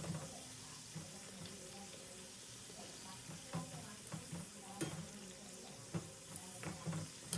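Hot oil sizzling steadily as a bhatura deep-fries in a kadai while a slotted spoon presses and bastes it. A few sharp clicks come in the second half.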